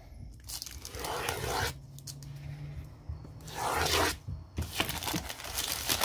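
Plastic poly mailer bag being slit with a utility knife and torn open by hand, the plastic crinkling and tearing in several uneven bursts.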